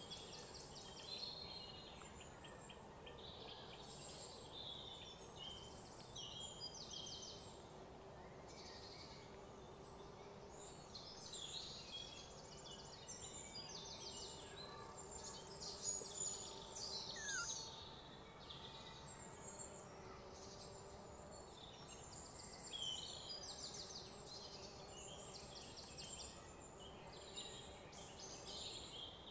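Faint outdoor ambience of birds chirping and trilling, with insects, many short rapid high calls overlapping, over a faint steady low hum.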